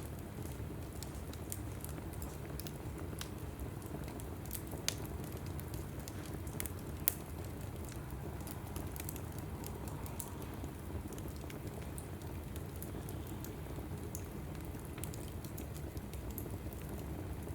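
Log fire burning in a fireplace, with a steady low rustle of flames and many small crackles throughout. Two sharper pops come about five and seven seconds in.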